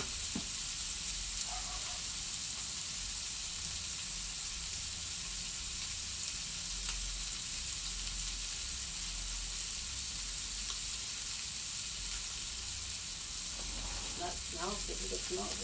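Two thick chuck steaks sizzling steadily on a heavy griddle over a charcoal kettle grill. The griddle has cooled to about 215 degrees under the fat, thick meat.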